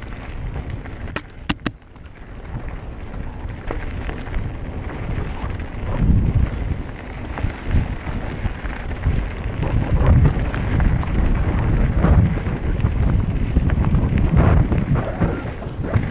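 Mountain bike riding fast down a rough gravel trail: tyres rattling over stones with wind buffeting the microphone, getting louder and bumpier about six seconds in. A few sharp clicks come about a second in.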